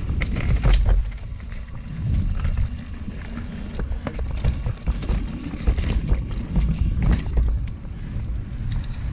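Mountain bike ridden fast over a dirt singletrack trail: wind rumbling on the helmet-mounted action camera's microphone, with tyre noise and frequent clicks and rattles from the bike over bumps.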